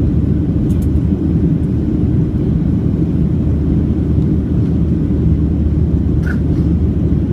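Steady low rumble of a Boeing 737-700's CFM56 jet engines and airflow heard from inside the passenger cabin, with a faint click about six seconds in.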